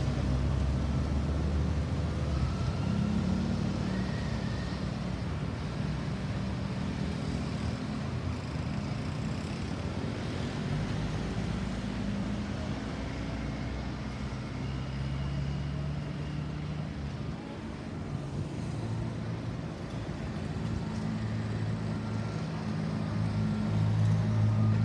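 Road traffic: motor vehicle engines running steadily, with no siren sounding. The engine sound grows louder near the end.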